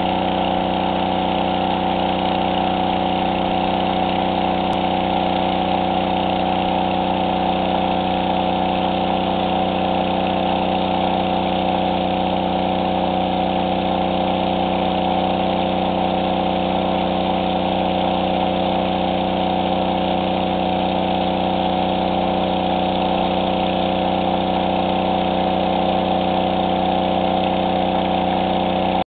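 Engine-driven water pump running steadily at a constant speed, pushing water out through a hose in a heavy stream.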